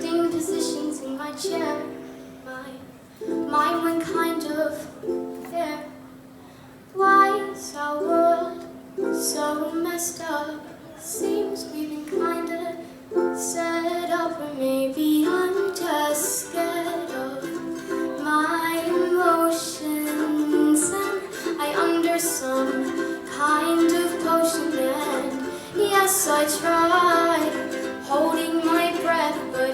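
A young girl singing a song over a plucked-string accompaniment, the chords played steadily under her voice, with a short drop in level partway through.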